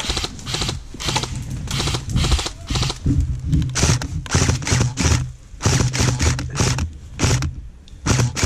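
Airsoft gunfire at a wooden bunker: a string of sharp snaps, two to three a second, irregularly spaced.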